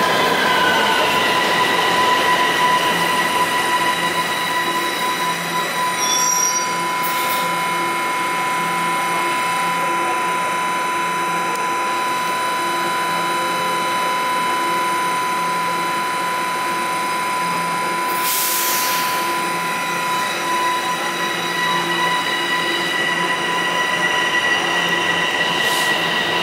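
Toronto TTC subway train running through an underground station: a steady rumble of steel wheels on rail with a high steady whine and a regular low clacking beat. A short hiss breaks in about two-thirds of the way through.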